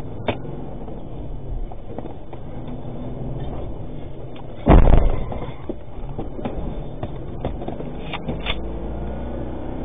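Steady engine and road rumble inside a moving vehicle's cabin, with one loud, sharp bang about five seconds in and a few faint clicks.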